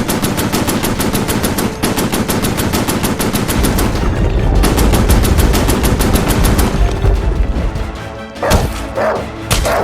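Automatic gunfire sound effect: a long rapid burst of about ten shots a second for some seven seconds, with a deep rumble swelling in the middle, then a few separate bangs near the end.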